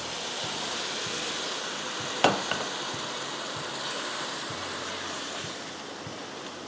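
Boiled water poured into hot semolina fried in ghee with sugar, hissing and sizzling as it hits the hot wok and throws up steam, while it is stirred with a wooden spoon. One sharp knock a little over two seconds in.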